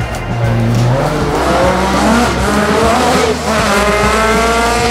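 Ford Escort Mk2 rally car engine accelerating hard at full throttle. The revs climb, fall away at a gearshift about three and a half seconds in, then climb again in the next gear.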